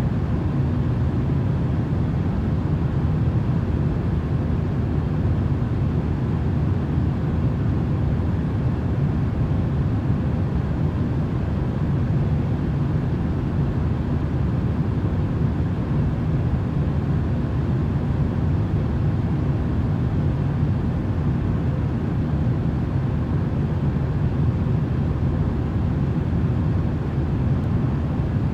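Steady, deep rushing noise from a sleep-noise track, even and unbroken, with a faint steady hum.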